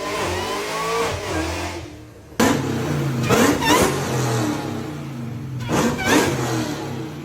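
Supercharged car engine being revved, the supercharger's whine rising and falling with engine speed. About two and a half seconds in, a louder engine comes in suddenly and is blipped sharply several times, its whine climbing with each rev.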